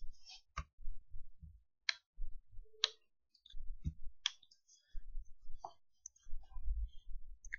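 Computer mouse clicks and key presses: a handful of separate sharp clicks, spaced roughly a second apart.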